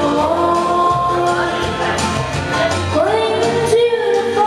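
A boy singing into a handheld microphone over a country backing track, holding and sliding between long notes over a steady bass and drum beat.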